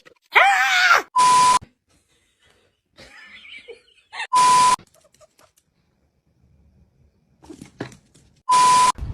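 Three short electronic beeps, each a steady high tone over hiss lasting under half a second, about a second in, about four seconds in and near the end. Just before the first beep comes a brief wavering, cry-like call.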